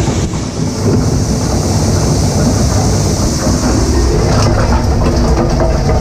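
Plastic shredder-granulator combination unit running under load, its gear-driven shredder rotor chewing solid plastic purge chunks above the granulator, with the conveying blower running. The machine noise is dense and steady, with irregular knocks and clatter that come more often from about four and a half seconds in.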